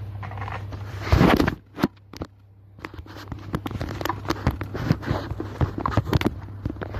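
Typing on a mechanical keyboard fitted with aftermarket switches: irregular sharp keystroke clacks, several a second, starting about three seconds in, over a steady low hum. A louder rustling knock comes about a second in.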